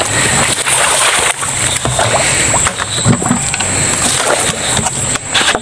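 Water sloshing and splashing among irregular knocks and rustles: a PVC-pipe eel trap being pulled out of flooded swamp ground and its live eels tipped into a plastic bucket.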